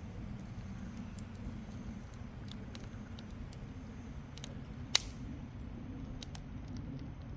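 A wood fire burning in a Coleman Fire Disk fire pit, crackling with scattered small snaps and one loud, sharp pop about five seconds in, over a low steady rumble.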